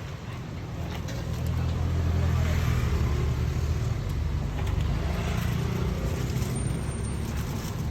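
A motor vehicle's engine running, growing louder about a second and a half in and then holding steady, over street traffic noise.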